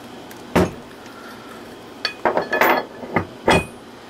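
Heavy 1-inch-thick AR-500 steel target plate knocking against a wooden desk as it is handled and set down: one knock about half a second in, then a cluster of clunks and clinks from about two to three and a half seconds in.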